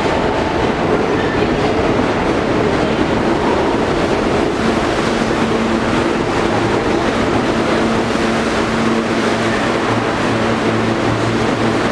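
New York City subway train moving along the platform: the steady rumble and clatter of the cars and wheels on the track. A low steady hum comes in about halfway through.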